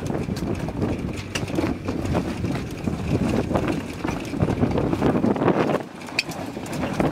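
Wind buffeting the microphone on a sailing yacht under way: a gusty rumble with scattered knocks and clicks, easing briefly about six seconds in.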